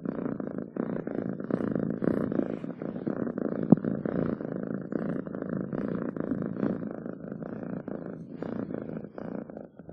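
Domestic cat purring steadily, with one short knock a little under four seconds in.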